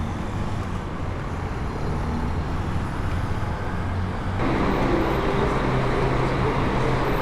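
Steady vehicle and traffic noise with a low hum, which turns suddenly louder and brighter about four seconds in.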